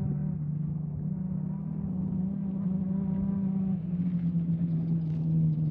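Off-road race vehicle's engine running at a fairly steady pitch, settling a little lower about four seconds in.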